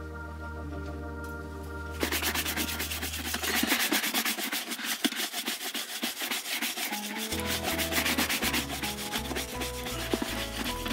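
Background music, then about two seconds in a brush starts scrubbing a leather boot in fast back-and-forth strokes, going on steadily over the music.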